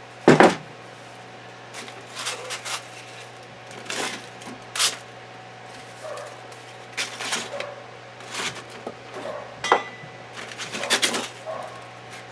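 Irregular metal clinks and knocks as gearbox parts and tools are handled and worked at, trying to free a rusted shaft from the case, over a steady low hum.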